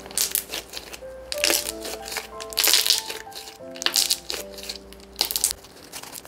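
Thick, ultra-creamy slime squished, folded and stretched by hand, giving irregular wet crackling squishes as trapped air pops, over soft background music with a simple melody.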